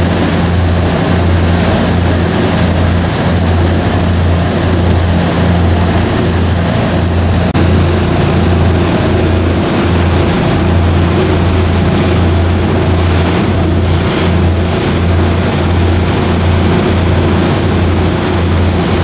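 Boat engine running steadily with a low, evenly pulsing hum. Its note steps up slightly about seven seconds in.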